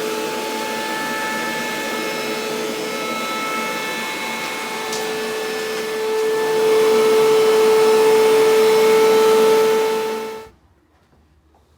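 Vacuum cleaner running with a steady whine, louder from about six seconds in, then switched off and cut off suddenly near the end.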